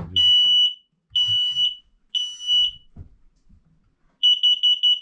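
Smoke alarm sounding during a test: three loud, high-pitched beeps of about half a second each, then a quick run of about six short beeps near the end. It shows the newly fitted detector is working.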